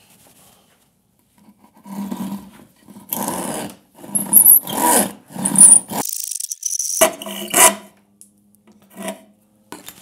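Hand saw cutting through a pine board clamped in a vise, in a run of back-and-forth strokes starting about two seconds in and stopping as the cut finishes near eight seconds.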